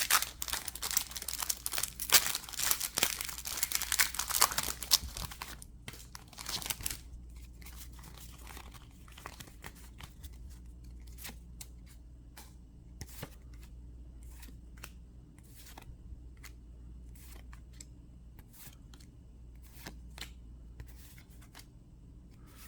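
Foil booster-pack wrapper being torn open and crinkled for about the first seven seconds, then soft intermittent flicks and clicks of trading cards being handled and slid one past another.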